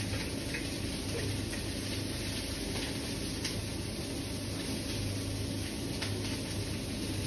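Broccoli florets sizzling in a pan on high heat, with scattered faint crackles, over a steady low hum.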